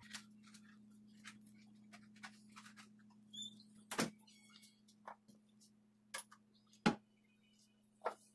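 A few sharp knocks and clicks of things being handled and set down in a kitchen, the loudest about four seconds in and again near seven seconds, over a faint steady low hum.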